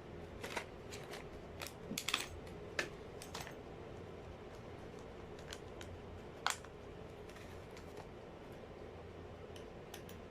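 Irregular light clicks and taps of small hair-clipper parts and tools being handled during a repair, a cluster in the first few seconds and a sharper single click about six and a half seconds in.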